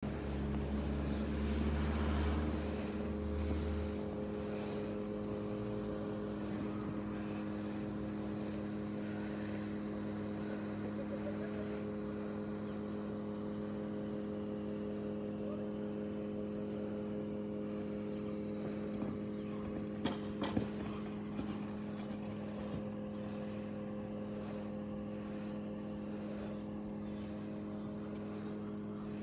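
A motor running steadily, an even hum that never changes pitch, louder for the first few seconds. A few sharp knocks sound about twenty seconds in.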